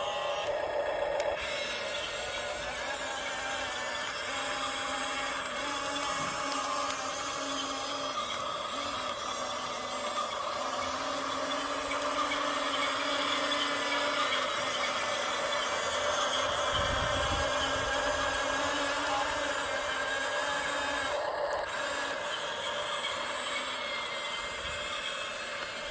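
Small electric gear motors of an RC crane whirring steadily, with a whine that shifts in pitch now and then as the motors work.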